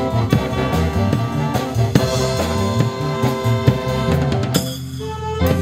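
Instrumental music with a steady drum-kit beat under a bass line and sustained melody notes. Near the end the drums drop out for under a second, then the beat comes back.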